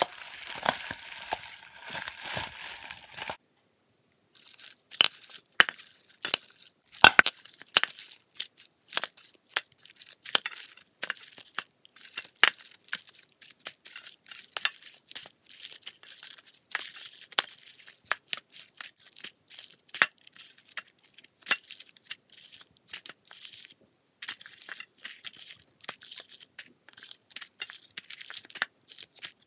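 Cellophane wrappers of Lindor chocolate truffles crinkling as the truffles are handled and dropped into a clear plastic bowl. There are many sharp crackles and ticks of the twisted wrappers, with a denser stretch of crinkling at the start and near the end.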